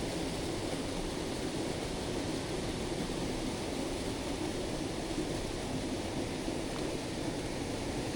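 Steady rushing of a mountain stream's flowing water, an even noise that does not change.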